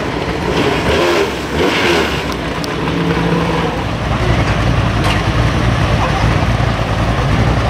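Stock car engines running in the pits, with a deeper, steadier engine rumble taking over about four seconds in.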